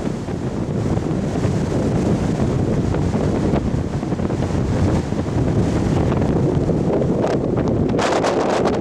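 Strong mountain wind buffeting the microphone: a dense, steady low rumble, with a few sharper gusts crackling on the microphone near the end.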